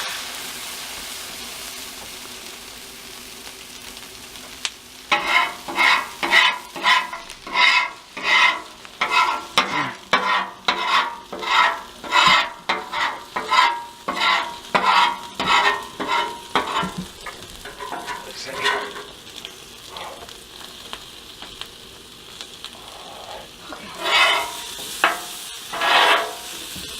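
Food sizzling on a Blackstone steel flat-top griddle, then a metal spatula scraping across the griddle top about twice a second for around twelve seconds while food is turned, with two more scrapes near the end.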